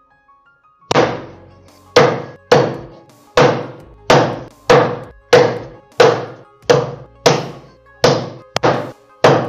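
Heavy Chinese cleaver chopping pork spare ribs into small pieces on a wooden chopping block: about thirteen sharp, even chops, roughly one every half-second, starting about a second in.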